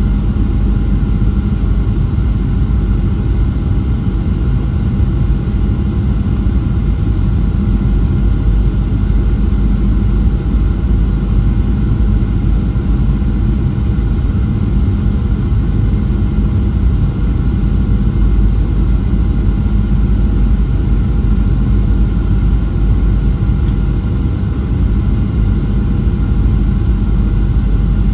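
Steady cabin noise inside a Boeing 737-700 in flight: a low rumble of airflow and its CFM56-7B jet engines, with faint steady whining tones above it.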